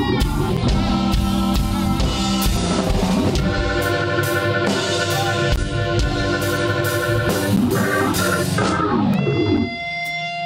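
Live blues band playing: electric guitar over drum kit and bass guitar. Near the end the drums stop and a held note rings on.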